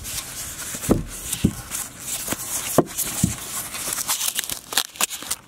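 Clear plastic bag and pink foam wrap crinkling and rustling as a wrapped part is pulled out of its packaging by hand, with irregular crackles and a few soft knocks of handling.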